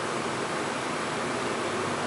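Steady, even background hiss with no distinct events; the nail-polish brushing makes no sound that stands out.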